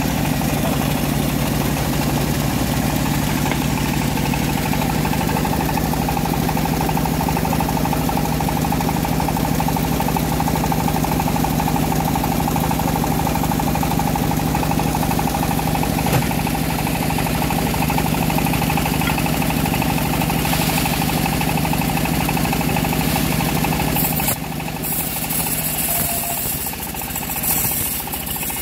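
Homemade bandsaw mill's engine running steadily under load as the band blade saws through a large acacia log. About 24 seconds in, the steady engine tone drops away suddenly, leaving quieter, irregular clattering.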